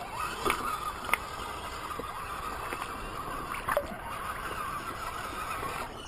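Axial SCX10 RC crawler's electric motor and gears whining steadily as it wades through shallow creek water, with splashing and gurgling water around the tyres. A few short sharp knocks come about half a second in, about a second in, and near the four-second mark.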